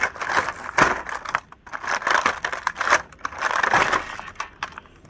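Plastic toy packaging being handled and opened, crinkling and rustling in four or five short bursts, with a few small clicks between them.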